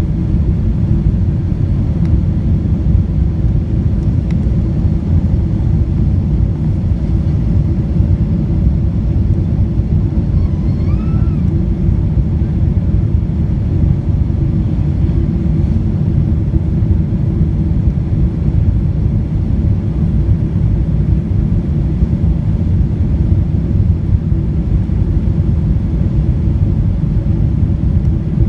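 Steady low rumble of a Boeing 777-200ER's engines and airflow heard from inside the passenger cabin, at an even level throughout.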